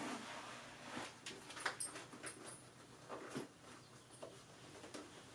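Speed and Strength SS2600 motorcycle helmet being pulled on over the head and adjusted at the chin: soft irregular scraping and rustling of the shell and padding against head and hands, with a few light clicks. The handling sounds thin out after about three and a half seconds.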